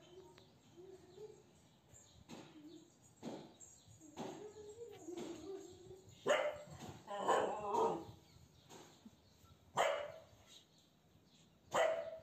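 A dog barking, a few short loud barks in the second half with softer, wavering sounds before them.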